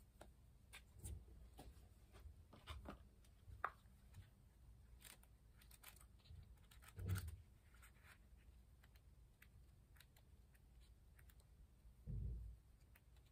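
Near silence with faint scattered clicks and rustles of small handling, and two soft thumps, one about halfway through and one near the end.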